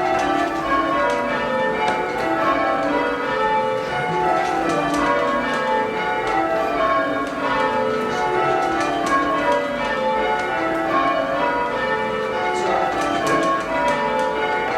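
Cathedral tower bells rung full-circle in change ringing, struck one after another in repeating rows that step down from the highest bell to the lowest.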